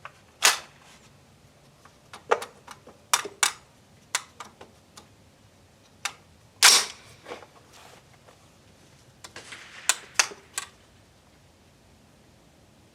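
Retro 601 AR-15-pattern 5.56 mm rifle being fired slowly for a sight-zeroing group: several sharp cracks with a short ring after them, among lighter clicks, the loudest about halfway through.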